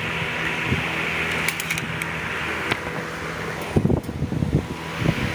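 Steady whir of a fan with a low hum underneath. A few soft knocks come about four seconds in, from handling.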